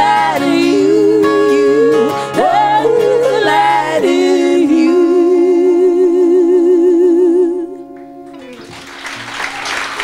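A live folk band ends a song: a singer holds a long final note with vibrato over ukulele and acoustic and electric guitars, and the music stops about three-quarters of the way through. Audience applause starts to build near the end.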